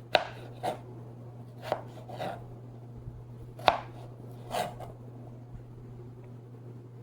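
A large kitchen knife slowly chopping a raw potato, about six separate chops at uneven intervals that stop about five seconds in.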